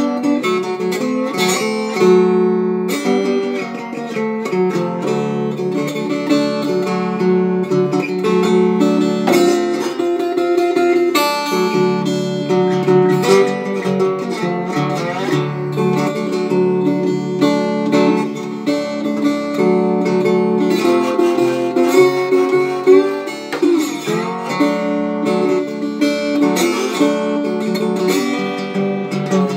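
Resonator guitar fingerpicked with a slide, an instrumental passage of picked notes and chords, some notes gliding in pitch under the slide.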